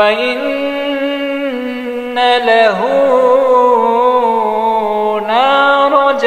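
Quran recitation in a melodic tajweed style: one voice holding a long, drawn-out ornamented phrase at a fairly steady pitch, with quick turns about two and a half seconds and five seconds in.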